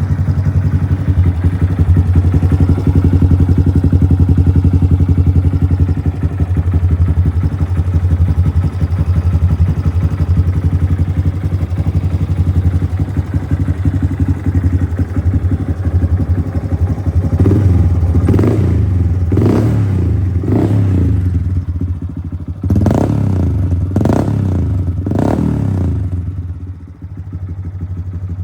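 Honda Grom's single-cylinder four-stroke engine idling through a T-TECH aftermarket muffler, running with no abnormal noise. Past the middle it is blipped about seven times in quick succession, then settles back to a quieter idle.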